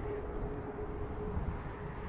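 Rolls-Royce Trent 7000 turbofans of an Airbus A330-800neo running steadily at a distance, a low rumble with a steady whine held at one pitch.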